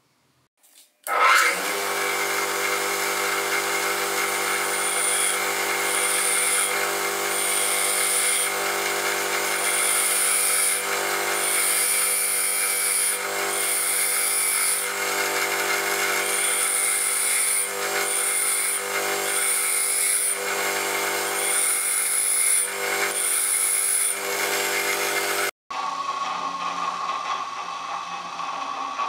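An electric grinding motor starts up and runs steadily while a drill bit is sharpened against the abrasive wheel. Each pass of the bit adds a short high grinding hiss, about every one to two seconds. The motor stops abruptly near the end, followed by a quieter, different mechanical sound.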